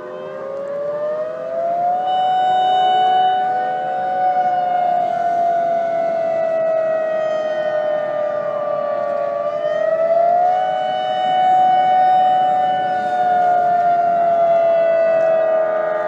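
Civil defense siren wailing as an earthquake alarm in a mock emergency alert broadcast. Several overlapping siren tones, slightly out of step, rise over the first couple of seconds, hold, and slowly fall, then rise again about ten seconds in and fall again near the end.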